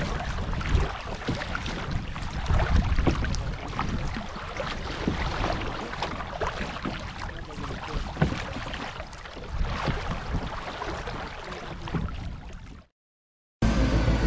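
Canoe out on the water in rain: irregular splashes and drips over a low wind rumble on the microphone. The sound cuts out about 13 seconds in, and background music starts just before the end.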